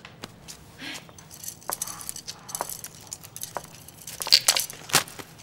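Bamboo fortune sticks clacking in their kau cim cylinder as it is handled and shaken: scattered light clicks and rattles, with two louder clacks near the end.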